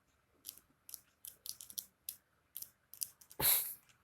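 Lovebird's beak pecking and biting: an irregular run of short, sharp clicks and crunches, with a louder scratchy burst about three and a half seconds in.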